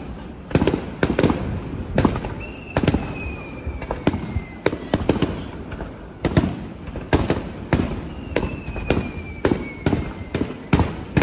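Aerial fireworks bursting in a fast, irregular barrage of sharp bangs, each trailing into an echo. Twice, a long whistle slides slowly down in pitch over the bangs.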